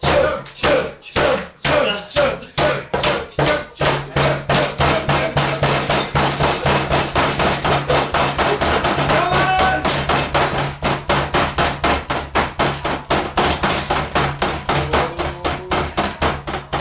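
Fast rhythmic banging, about two beats a second at first and speeding up to about four a second, with voices shouting along on the early beats.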